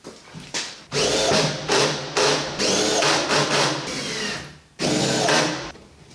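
Cordless drill driving screws into wooden strapping, its motor whining up to speed in two runs: a long one with short pauses, then a shorter one near the end.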